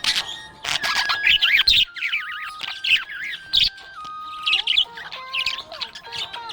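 Budgerigars chirping and warbling in quick, busy runs of short high notes, with a few harsher squawks.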